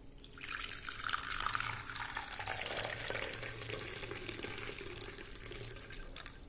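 Frothy butter coffee poured in a steady stream from a steel saucepan into a ceramic cup, splashing and bubbling as the cup fills. The pour starts about half a second in and tails off near the end.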